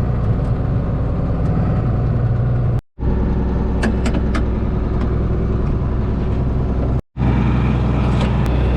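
John Deere 4840 tractor's diesel engine running steadily, soon after a hard cold start with ether. The sound drops out completely twice, briefly.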